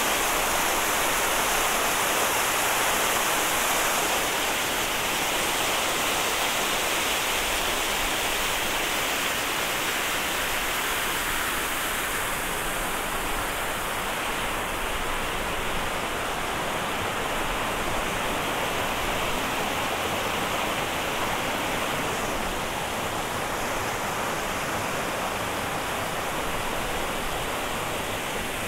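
Steady rush of flowing water, slowly growing a little fainter toward the end.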